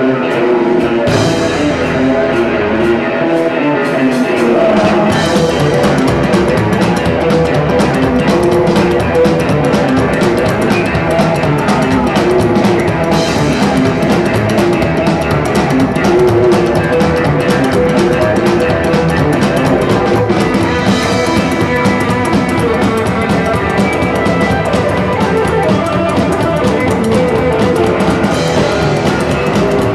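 Rock trio of electric guitar, upright double bass and drum kit playing an instrumental live. The guitar is heard nearly alone at first, with bass and drums coming in about four to five seconds in.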